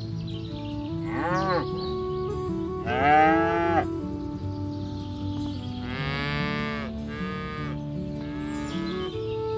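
Cattle mooing: about five calls that rise and fall in pitch, the loudest about three seconds in, over background music of held notes.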